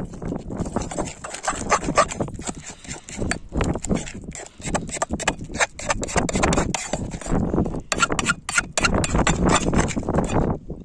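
Metal spatula scraping and knocking against a steel frying pan while stirring food, a rapid, irregular run of clicks and scrapes.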